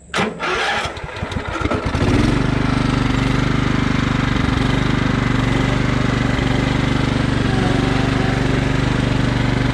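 Craftsman riding lawn mower engine starting: uneven sputtering for about two seconds, then it catches and runs steadily.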